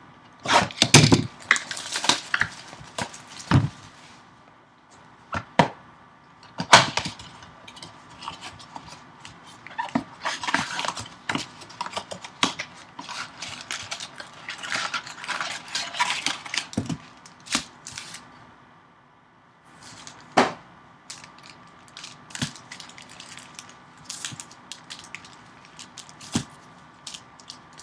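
Trading-card blaster box being handled and opened: scattered taps and knocks on cardboard, with stretches of plastic pack wrappers crinkling.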